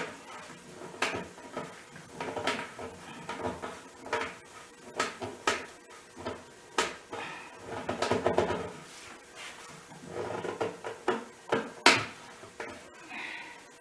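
Irregular wooden knocks, taps and scraping as a dowel is pushed and twisted in and out of a drilled hole in a cedar tabletop to test the fit. The hole binds near the bottom. Louder clusters of clatter come about 2, 8 and 10 seconds in.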